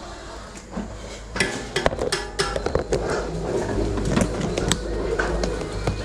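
Clattering and knocking of hard objects: many quick, sharp knocks starting about a second and a half in, over a low steady rumble.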